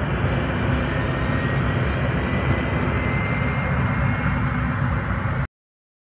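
Jet airliner's engines running on a takeoff roll: a steady rushing rumble with a faint, slowly rising whine. It cuts off suddenly about five and a half seconds in.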